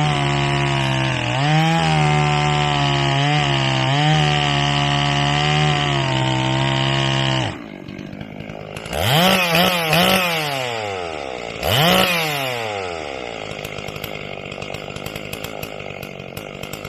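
Stihl 044 two-stroke chainsaw running at high revs with small dips for about seven seconds, then dropping to a low idle. It is blipped up three quick times, revved once more, and settles back to idle.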